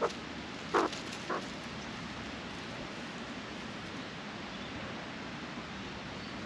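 A few short, croaky Australian magpie calls in the first second and a half, then only a steady background hiss.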